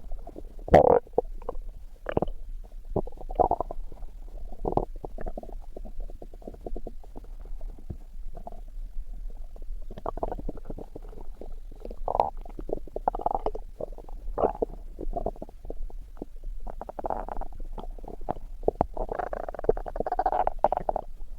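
Human stomach growling: an irregular run of short gurgles and clicks, with a longer, louder rumble near the end.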